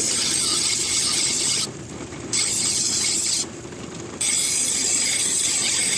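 Steel knife blade drawn across a sharpener in long, hissing grinding strokes: three strokes, each one to two seconds long, with short pauses between.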